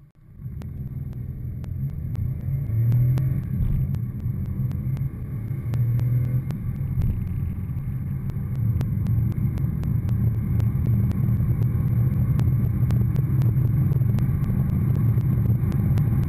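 Cabin sound of a Škoda Fabia's 69 hp 1.2-litre three-cylinder petrol engine under full-throttle acceleration from a standstill, pulling hard and rising in level. It dips briefly at a couple of upshifts.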